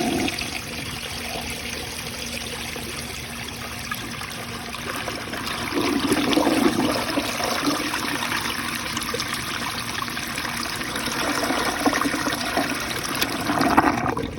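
A 1965 Rheem Claymore toilet running water after a flush: a steady rush with trickling into the bowl as the tank and bowl refill, swelling slightly a couple of times.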